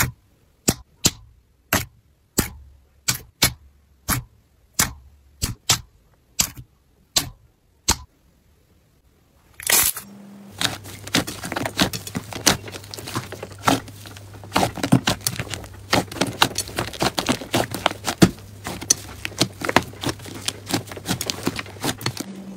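Slime being pressed and squished by hand: sharp clicking pops about twice a second. After a short pause, a thick slime is kneaded and stretched with a dense run of crackling pops.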